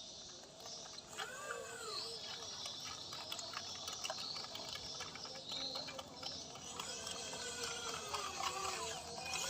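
Small electric drive motors of a 1/14-scale RC dozer whining, rising and then falling in pitch several times, over steady clicking and rattling.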